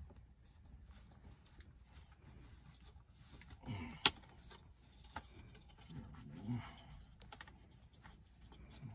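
Small hardware handled by hand: scattered light clicks and taps of plastic parts and screws, with one sharp click about four seconds in.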